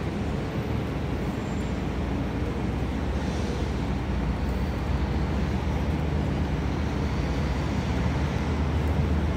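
Street traffic: a steady low rumble of vehicle engines, growing slightly louder toward the end.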